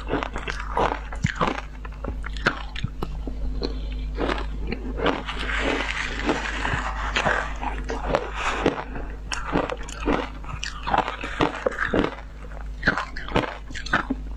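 Ice being bitten and chewed close to the microphone, a run of sharp irregular crunches and cracks, some coming thick together, over a steady low hum.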